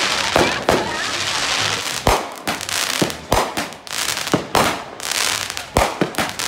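Consumer fireworks going off all around: a string of sharp bangs at irregular intervals over a continuous noisy background, the loudest about two, three and a half and six seconds in.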